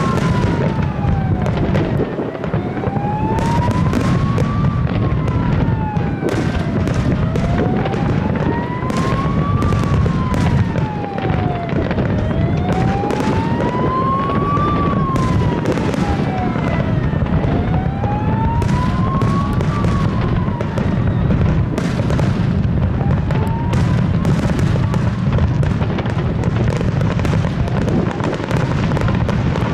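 Aerial fireworks display: a rapid run of shell bursts and crackling over a heavy, constant low rumble. Through it a siren wails, rising and falling about every five seconds, and fades after about twenty seconds.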